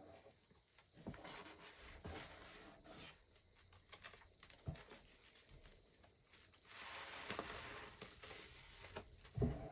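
Wet squishing and squelching of hands kneading a thick foamy paste and squeezing a soaked scouring sponge in a plastic tray, coming in irregular squelches with a longer squeeze about two-thirds through. A duller thump near the end is the loudest sound.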